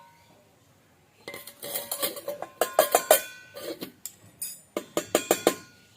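Clinking and clattering of small hard objects, like dishes or cutlery being knocked about, in two quick runs with a short pause between.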